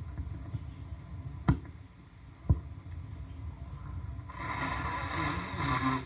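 A person with a head cold blowing a congested nose hard, a rushing noise with a wavering honk that starts about four seconds in and lasts nearly two seconds. Two sharp clicks come before it, about a second apart, over a low rumble.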